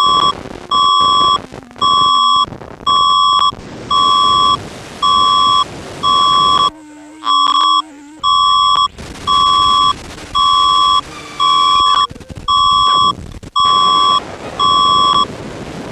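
Emergency alert beeps: a single electronic tone, pulsed on and off about once a second in a long even series of about fifteen beeps, over a steady hiss.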